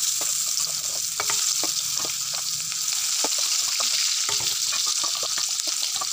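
Chopped onion frying in hot mustard oil with bay leaves and cumin seeds in a kadai: a steady sizzling hiss dotted with many small crackles and pops.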